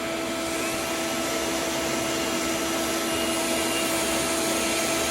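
Shop vacuum running steadily, a constant motor whine over a rush of air.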